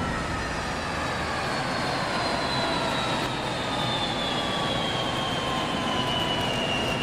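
Jet aircraft engine noise: a steady rush with a high whine that slowly falls in pitch.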